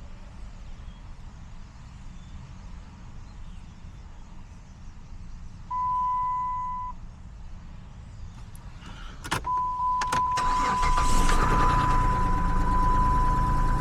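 A Dodge car's engine turned over with a newly cut ignition key: a steady electronic warning tone sounds for about a second, then after a click the engine cranks and starts and keeps running, with the same steady tone sounding over it. The engine starting shows that the new key turns the ignition.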